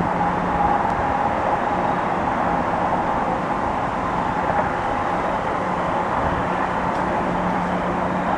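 Steady background hum of distant vehicles, with a faint steady tone running through it.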